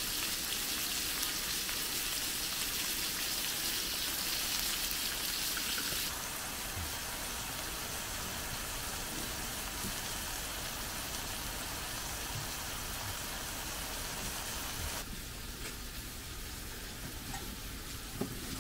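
Pork belly and kimchi sizzling in fat on a stone-coated griddle pan: a steady frying hiss that drops a little in level about six seconds in, and again near the end.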